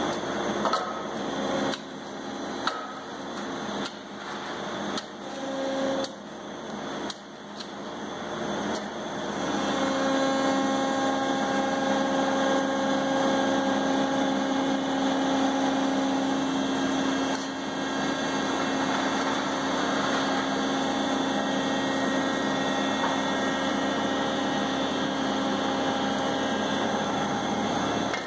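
Electric-hydraulic Brokk remote-controlled demolition robot working its hydraulics as it walks itself off a ledge on its outriggers and boom: a pitched pump whine that starts and stops, with several knocks, for the first several seconds, then a steady whine under load from about ten seconds in.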